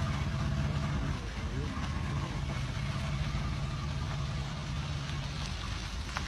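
A vehicle engine idling, a steady low hum, with faint voices and a short sharp click near the end.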